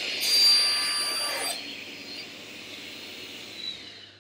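Felder table saw with a 250 mm, 60-tooth alternate-top-bevel crosscut blade cutting across a parquet board. The cut starts about a quarter second in and lasts about a second and a half, then the blade runs free with a steady whine that fades away near the end.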